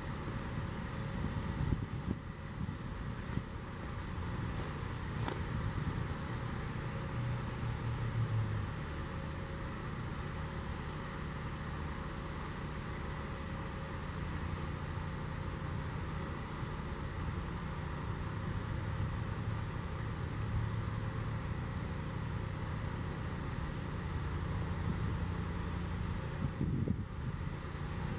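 Road traffic: cars driving past with a steady low rumble of engines and tyres.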